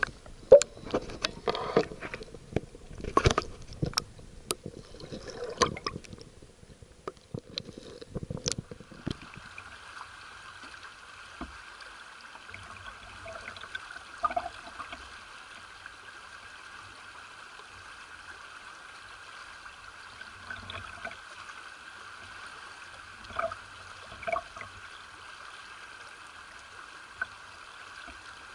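Water sloshing and knocking close against a camera held underwater in a stream for about the first nine seconds, then the steady rush of a shallow river flowing over rocks, with a few faint splashes.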